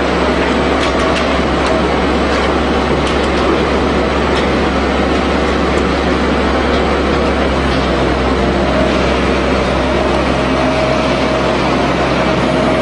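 Large industrial meat mincer running, a loud steady mechanical drone with a low motor hum and scattered faint clicks.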